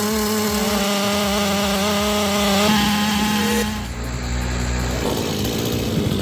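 Large Holzforma G888 chainsaw running at steady high revs. A little past halfway its note drops away and a lower, rougher engine sound follows.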